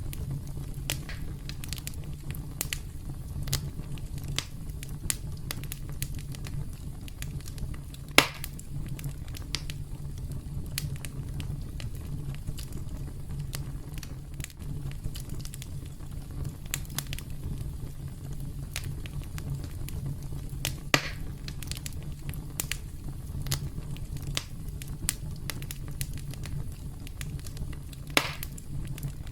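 Campfire crackling: frequent small snaps and clicks over a steady low rumble, with three louder pops, about eight seconds in, about twenty-one seconds in, and near the end.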